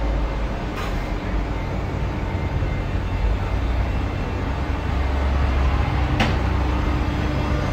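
Steady low rumble of street traffic, with a heavy vehicle running close by and two sharp clicks, one about a second in and one about six seconds in.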